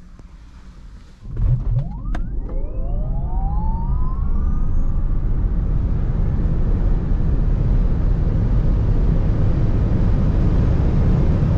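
2022 Lucid Air's dual electric motors accelerating hard from a standstill. About a second in, the sound jumps to a loud rumble, and a motor whine of several tones together climbs steeply in pitch over a few seconds. After that comes a steady loud rush of tyre, road and wind noise at high speed.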